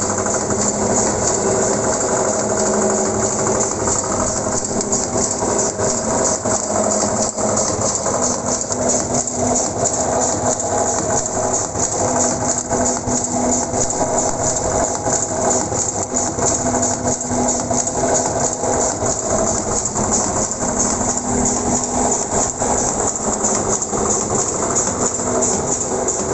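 Automatic spice-powder pouch packing machine running at a steady 90 packs a minute. Its pneumatic sealing jaws and auger filler make a continuous fast mechanical clatter over a steady motor hum.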